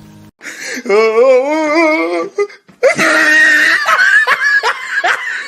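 A meme sound clip of a voice: a short wail that wobbles up and down in pitch, then, after a brief break, a burst of laughter in quick repeated rising strokes.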